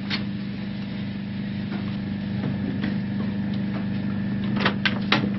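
Steady mechanical hum of factory machinery, with a click right at the start and three sharp clacks in quick succession near the end.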